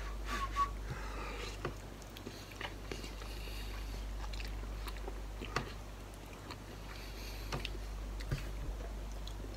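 Man eating instant ramen noodles: chewing, with a few sharp clicks scattered through it.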